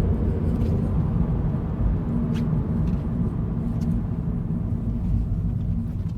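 Car cabin noise while coasting off the throttle in a 2014 Scion FR-S: steady road and engine rumble with a low, steady buzz, which the owner traces to the driver's side door speaker. The buzz comes only with the foot off the gas on rough or uneven road.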